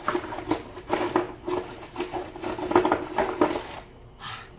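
A lemon being zested by hand: a run of quick scraping strokes of the blade across the peel, several a second, easing off near the end.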